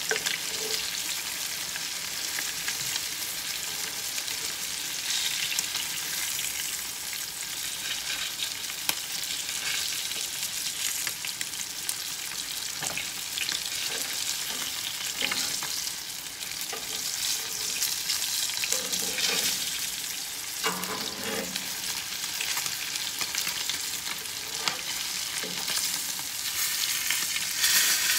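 Swai fillets sizzling and crackling steadily as they pan-fry in hot butter and oil, with occasional scrapes and taps of a spatula against the pan.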